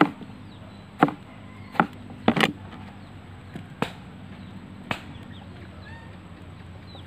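Kitchen knife slicing an eggplant on a plastic cutting board: about seven sharp knocks of the blade striking the board, spaced irregularly over the first five seconds, with a quick pair near the middle.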